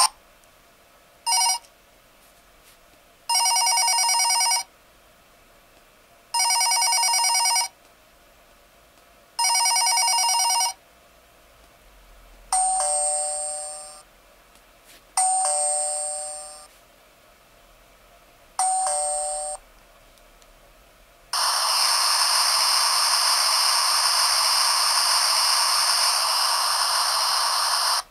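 Button-operated alibi sound-effect gadget playing through its tiny built-in speaker, thin with no bass: after a short beep, a warbling electronic telephone-style ring sounds three times, then a two-note ding-dong doorbell chime falling in pitch sounds three times. About 21 s in, a steady hissing background recording starts and runs on.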